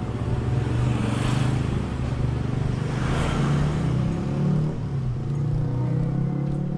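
Motor vehicle engines running close by in street traffic, with two louder swells about one and three seconds in as vehicles go past.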